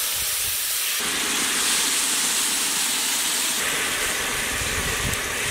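Large whole fish frying in a big wok of hot oil, hissing and sizzling loudly as liquid is poured into the pan through a strainer. The hiss grows fuller about a second in and holds steady after that.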